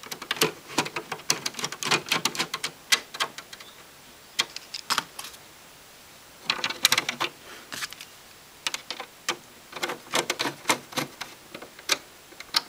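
Screwdriver turning screws into the plastic back cover of a Kriesler valve radio: quick runs of sharp clicks and scrapes in several bursts, with short pauses between.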